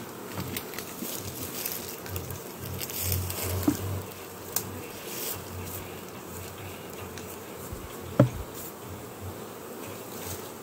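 Western honey bees (Apis mellifera) buzzing in numbers around an opened hive during a honey harvest, a steady, wavering hum. A few sharp knocks come through, the loudest about eight seconds in.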